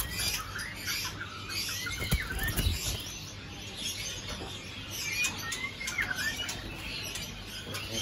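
Caged songbirds chirping, in short calls and brief rising and falling whistles, with a few low thumps about two seconds in.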